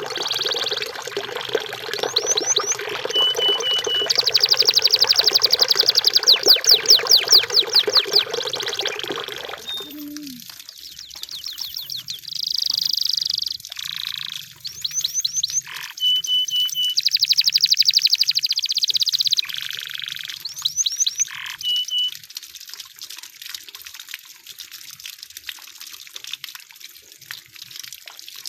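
Canary singing in phrases of rapid trills and short whistled notes. For the first ten seconds or so it is over a steady sound of running water, which then stops, leaving the song alone.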